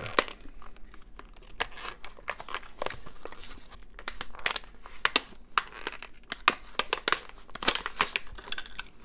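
A cardboard-backed plastic blister pack being torn open by hand: the card ripping and the plastic crinkling in an irregular run of sharp crackles and tears, loudest in the second half.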